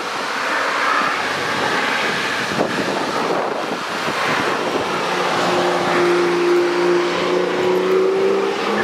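A car drives past on the race track over a steady hiss. From about five seconds in, the steady engine note of another car can be heard, rising slightly near the end.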